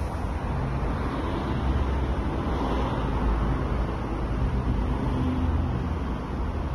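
Steady low rumbling background noise, with no distinct events.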